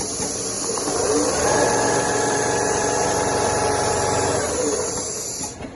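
Richpeace CNC leather sewing machine running a stitch cycle: its motor whine rises about half a second in, holds steady, and falls away near the end, over a steady high hiss.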